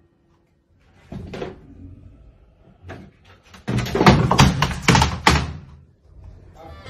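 A white plastic box tipping off a washing machine with a cat: a thump about a second in, then about four seconds in a rapid run of loud hollow plastic clatters and thuds as it hits the floor and tumbles.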